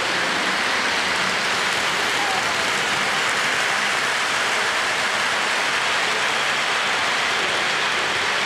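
Steady rushing hiss of Lionel O-gauge model trains rolling on three-rail track, the Chessie EMD GP7 and its freight cars passing close by.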